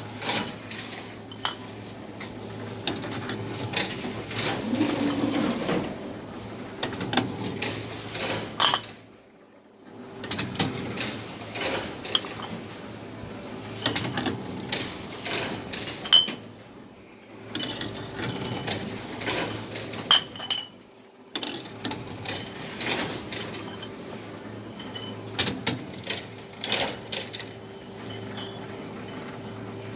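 Bottle-return machine taking glass beer bottles: its motor hums steadily as each bottle is drawn in, with many glass clinks and clacks, and a few brief pauses between bottles.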